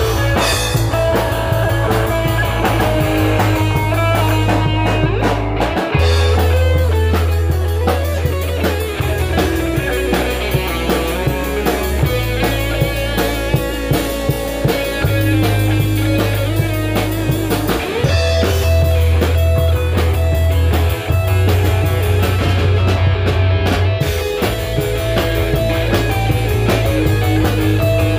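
A rock band playing, with guitar and drum kit, over low bass notes that change every few seconds.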